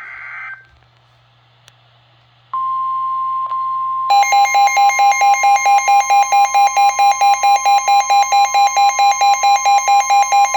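Emergency Alert System tones: the tail of a SAME digital header burst, a warbling data screech, ends half a second in. About two and a half seconds in, a steady 1050 Hz NOAA Weather Radio warning alarm tone starts. From about four seconds a loud pulsing electronic beep of about four beats a second joins it, signalling that a severe thunderstorm warning is about to be read.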